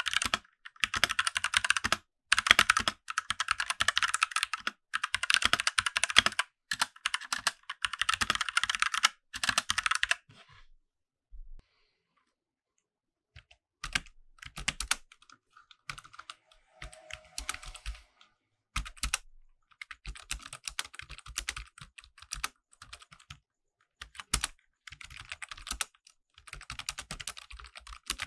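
Typing on a mechanical keyboard: fast, dense clicking keystrokes for about the first ten seconds, a pause of about three seconds, then lighter, more scattered keystrokes.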